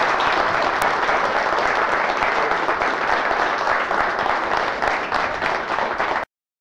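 Audience applauding, stopping abruptly about six seconds in.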